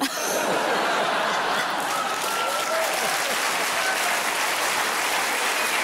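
Studio audience applauding a joke, the clapping starting all at once and holding steady.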